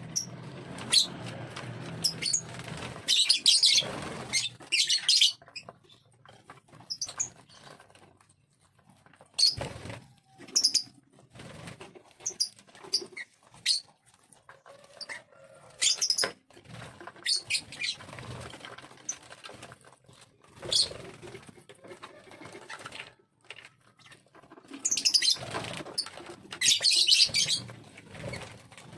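Lovebird giving short, shrill chirps and squeaks, with two louder bursts of rapid chattering, one about three seconds in and one near the end.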